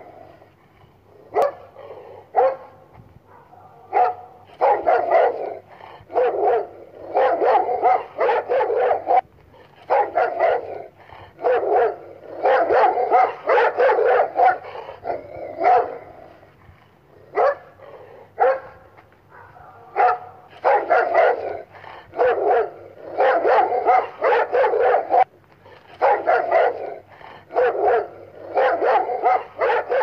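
Doberman barking aggressively, in rapid runs of several barks with short pauses and a few single barks between.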